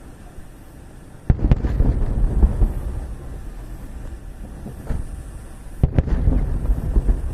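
Aerial firework shells bursting: two loud booms about a second and a half and six seconds in, each followed by a low rolling rumble that dies away over a second or more, with a smaller crack in between.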